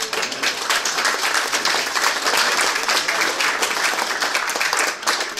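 Crowd applauding, a dense, steady clapping.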